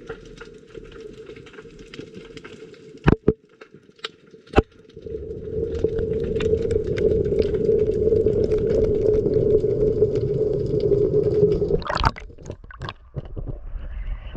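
Underwater sound beside a harbour quay: faint crackling and a low hum, broken by three sharp knocks in the first five seconds. Then a loud steady rumble with a hum sets in, lasting about seven seconds and ending with another knock.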